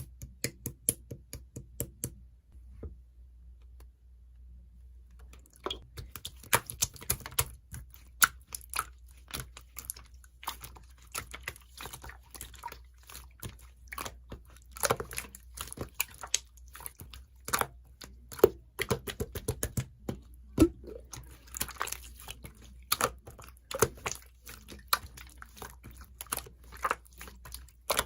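Slime being squeezed and pressed by hand, giving quick wet clicks and pops. A few seconds in the clicking stops briefly, then starts again and carries on densely.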